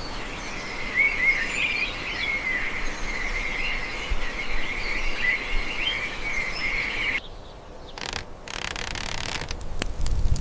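Small birds chirping and twittering over a steady background hiss. About seven seconds in this cuts off abruptly, and a few sharp clicks and knocks follow near the end.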